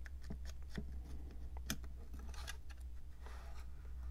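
Scattered small clicks and brief light scrapes of hard plastic as the loosened red plastic side frame of a Mares Genius dive computer is worked free and lifted off the housing.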